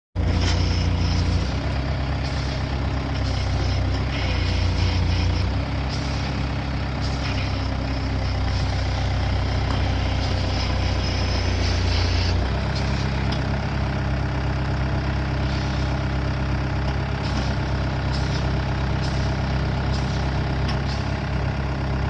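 Skid steer engine running steadily under a thin, steady whine, its note shifting a few times as the load changes.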